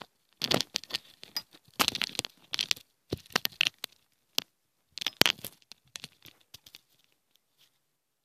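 Crackling and rustling handling noise on the recording device's microphone as it is gripped and moved, coming in irregular bunches of sharp crackles and dying away about seven seconds in.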